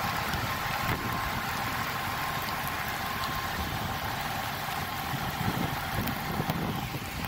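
Rain pouring onto a wet street, with wind rumbling on the phone microphone. Underneath runs the steady idle of a semi-truck's diesel engine and a faint steady hum.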